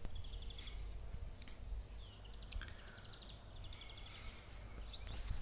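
Small birds chirping in short, rapid trills, with a steady low rumble on the phone's microphone.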